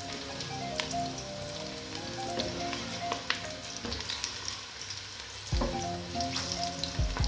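Sliced onions sizzling and crackling as they fry in oil in a stainless steel pot, stirred with a wooden spoon. Soft background music plays underneath.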